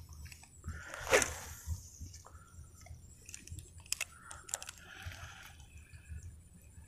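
A spinning rod swished through a lure cast about a second in, a quick whoosh falling in pitch. Several short clicks of the spinning reel follow as it is handled.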